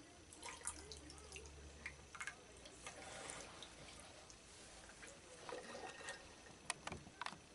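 Orange juice being poured, faint, into a glass of ice and vodka, with scattered small clicks and ticks as the glass and ice are handled.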